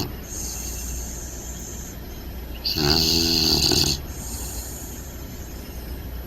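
English bulldog puppy snoring in its sleep: one loud snore lasting a little over a second, about three seconds in, with softer breaths either side. Snoring like this is typical of the breed's short, flat-faced airway.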